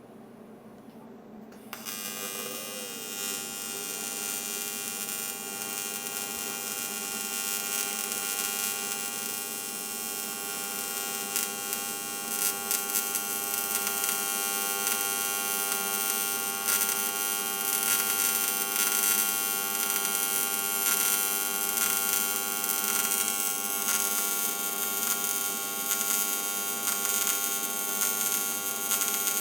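TIG welding arc struck about two seconds in, then a steady electric hum and buzz as a V-band flange is welded onto a 4-inch boost tube turning on a rotary positioner.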